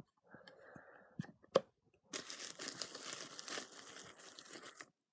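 Packaging being torn open and crinkled by hand: a soft rustle with a couple of light clicks, then about three seconds of continuous tearing and crinkling.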